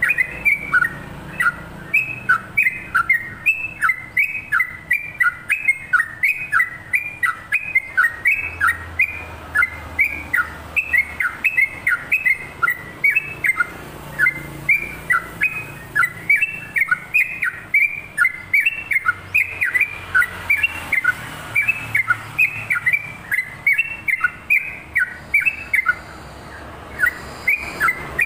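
Yellow-vented bulbul (trucukan) singing a long unbroken run of quick, slurred notes, about three a second, pausing briefly near the end before starting again.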